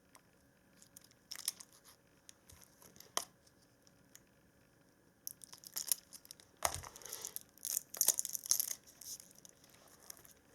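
Plastic wrapping and tape crinkling and tearing as a laptop battery pack of 18650 cells is pulled apart by hand. At first there are a few scattered clicks and crackles, then about half-way through a denser run of tearing and crinkling that dies away near the end.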